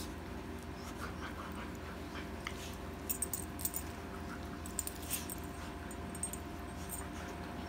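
Two small dogs play-fighting, with scuffling and faint dog noises, and their collar tags jingling in short clusters about three and five seconds in, over a steady low hum.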